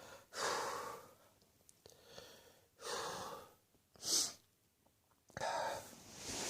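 A man gasping and breathing hard in four noisy bursts, the third short and sharp, his throat irritated by curry spices.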